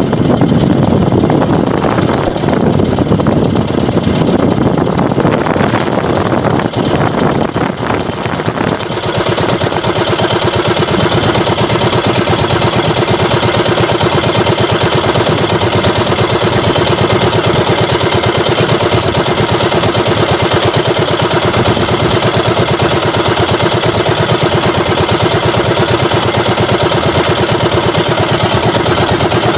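Small engine of an outrigger fishing boat running steadily. For the first nine seconds or so it is mixed with a loud rush of wind and water; after that the motor's even hum is clearer and unchanging.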